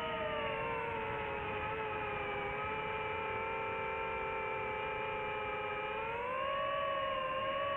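DJI FPV drone's motors and propellers whining in flight. The pitch drops in the first second, holds steady, then rises about six seconds in as the throttle is raised.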